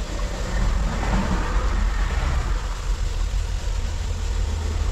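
Raw chicken pieces sizzling in hot oil as they are dropped into a pressure cooker on a gas burner, over a steady low rumble.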